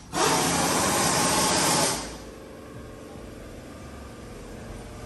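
Pneumatic impact wrench running in one burst of about two seconds, a fast rattling hammer with an air hiss, working a wheel's lug nuts off. It stops sharply and leaves a quieter steady shop background.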